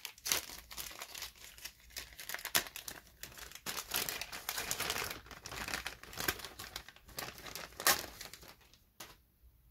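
Clear plastic anti-static bag being handled and pulled open by hand: a dense run of crinkles and crackles that dies away near the end, with one sharp click just after.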